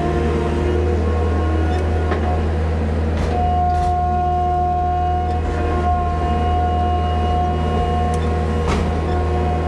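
Diesel engine of a loading machine running steadily, heard from inside its cab, with a steady high whine from the hydraulics that grows stronger about three seconds in as the boom works. A few short metal knocks come through.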